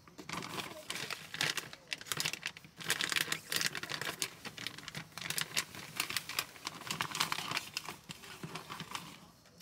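Clear plastic zip bag crinkling and rustling as it is handled and opened, a dense run of crackles that dies down near the end.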